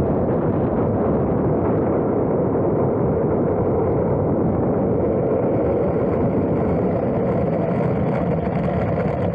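Steady rumbling noise picked up by a small camera mounted on an E-flite F-15 64 mm electric ducted-fan RC jet as it taxis on asphalt, with a faint high whine joining about halfway through.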